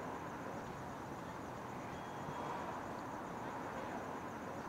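Quiet night ambience: a steady low background rumble with faint crickets chirping high and even.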